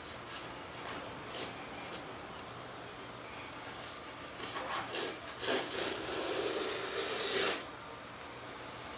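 Small hand plane shaving the edge of a wooden model-aircraft tail stabilizer, rasping wood against the blade. There are a few light strokes, then a quicker run of strokes, then one longer and louder scrape that stops sharply near the end.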